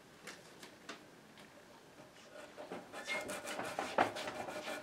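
A steel blade scraping in short strokes at wood putty on a turned mahogany table leg. The strokes are faint and sparse at first, then come closer together and louder about halfway through.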